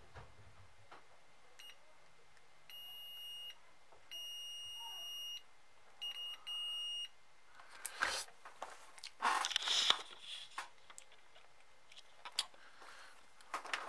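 Digital multimeter beeping in continuity mode as its probes touch contacts on the headphone's jack board: four or five steady high beeps in the first seven seconds, short ones and longer ones of about a second, each signalling a closed connection between the probed points. After that, clicks and rustling from handling the probes and the ear cup, loudest near the end.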